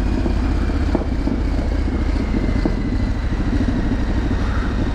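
Triumph Street Scrambler 900's parallel-twin engine running steadily under the rider at low town speed.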